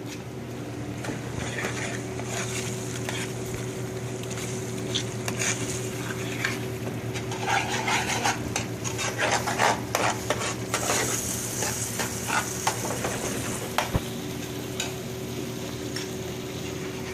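Stovetop cooking in a restaurant kitchen: food sizzling in pans while metal utensils scrape and clatter against them in quick, irregular strokes, over a steady machine hum. The clatter is busiest in the middle and eases off near the end.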